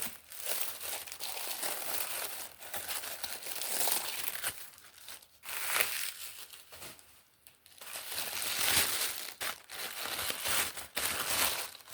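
Paper packing material crinkling and rustling as it is pulled apart and unwrapped by hand, with sharp crackles and a short lull partway through.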